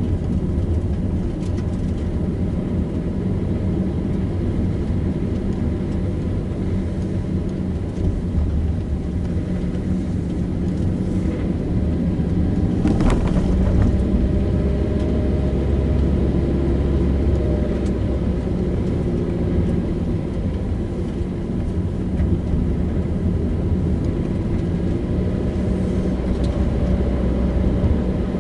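Car driving along a road: steady engine and tyre rumble, with one brief knock about halfway through.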